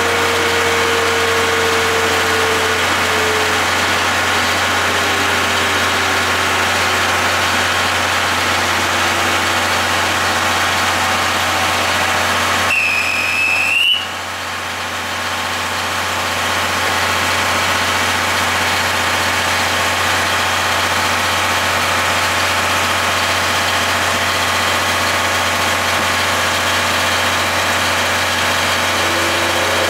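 Steady idling hum of the diesel generator set under a 12-series passenger coach, which keeps running while the train stands and begins to pull away. It dips briefly a little past the middle.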